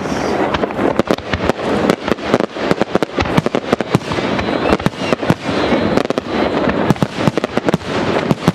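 Fireworks display: aerial shells bursting and launching in rapid, overlapping bangs, several a second, over a steady hiss between the reports.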